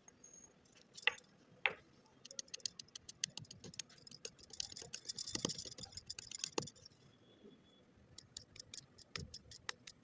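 Chalk sticks being crushed on a hard floor. A few sharp cracks come first, then a dense run of crunching and crackling with a gritty grinding around the middle, and a quick string of small ticking crackles near the end.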